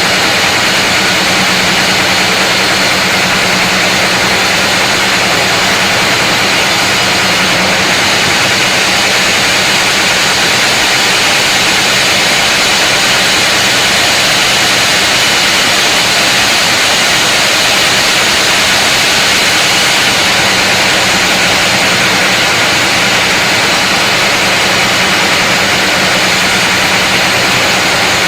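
A large sawmill saw running steadily through a big mahogany log, giving a loud, unbroken cutting noise over a steady low machine hum.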